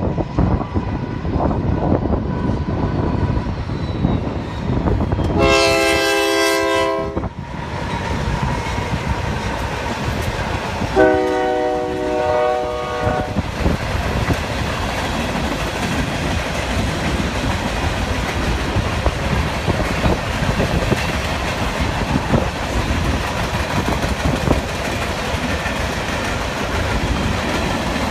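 Union Pacific unit dirt train, led by GE AC44CW diesel locomotives, passing close by. Its air horn sounds two long blasts, the second lower in pitch as the locomotives go past. After that the diesels and the hopper cars roll by with a steady rumble and clickety-clack of wheels over the rail joints.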